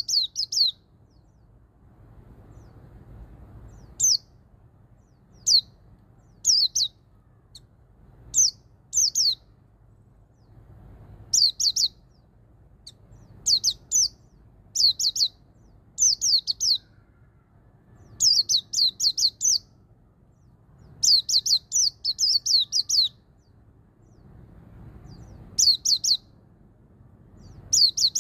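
White-eye (pleci) singing the 'ngalas' song in 1-2-3-4-5 beat phrases. Each phrase is a run of sharp, high, downward-sweeping notes, from a single note up to about five in quick succession, with pauses of a second or two between runs.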